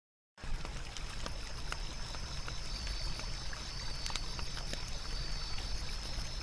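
Night-time nature ambience: a steady rushing wash with scattered small crackles and a high, steady chirr of insects. It comes in about half a second in, after a brief silence.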